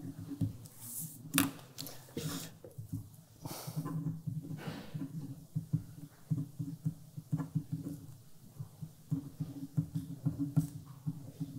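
Pen writing on paper and sheets of paper being handled on a table, with scattered small clicks and rustles over a low steady hum.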